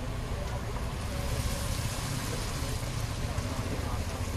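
Spiral-cut potatoes deep-frying in hot oil: a steady sizzling hiss of bubbling oil over a constant low rumble.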